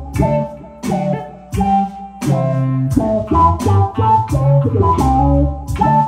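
Electric bass and an archtop hollow-body electric guitar playing together: low bass notes under higher plucked guitar notes, with sharp attacks recurring through the passage.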